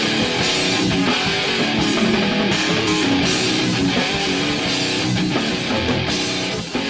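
Guitar-driven rock outro music playing steadily.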